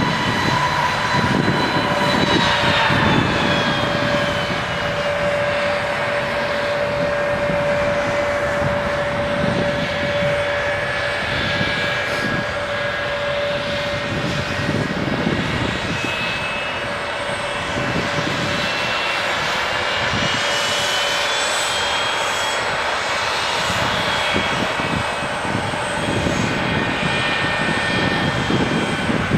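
Airliner engines running loud with a steady rushing noise and several whining tones that slide down in pitch a couple of seconds in and climb again later, as an aircraft moves near the airport fence.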